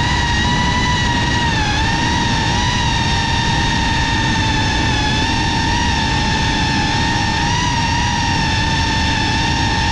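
GEPRC CineLog35 cinewhoop's brushless motors and ducted propellers running with a steady whine, picked up by its onboard GoPro, over rushing air. The pitch wavers slightly with throttle changes about two seconds in and again near eight seconds.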